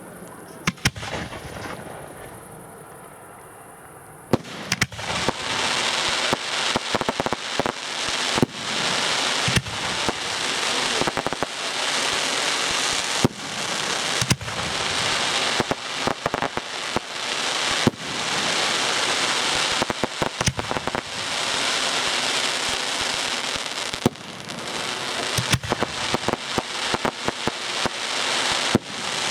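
Fireworks going off: a single bang near the start, then from about four seconds in a continuous dense crackling with sharp shots about once a second, easing briefly about twenty-four seconds in before picking up again.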